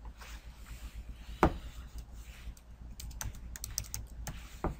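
Typing on a computer keyboard: scattered key clicks, with a quick run of them as a file name is typed and a louder single click about a second and a half in.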